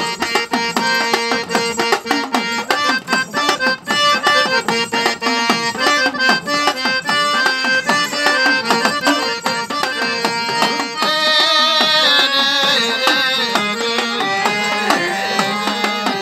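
Harmonium playing a melody over steady hand-drum strokes: an instrumental passage of Gujarati devotional folk music.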